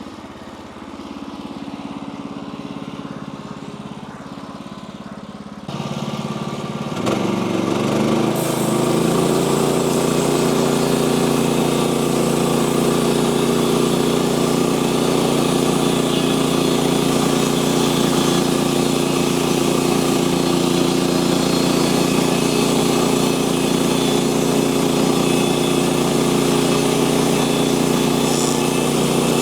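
Sawmill engine running at a lower speed, then throttled up in two steps about six and eight seconds in and running steadily at high speed under a broad hiss.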